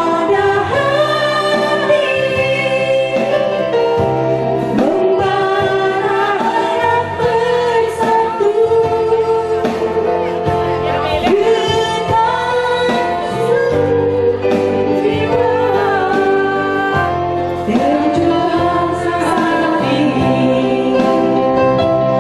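A woman singing a sentimental song over instrumental accompaniment, her voice gliding and holding long notes.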